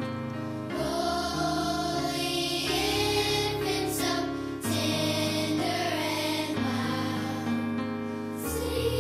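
Choir singing a Christmas song with instrumental accompaniment, in long held chords that change every second or two over a bass line.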